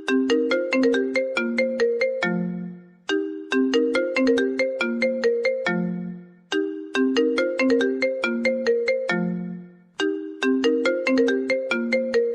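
iPhone incoming-call ringtone playing. A quick run of short mallet-like notes ends on a longer low note. The phrase repeats about every three and a half seconds, four times over.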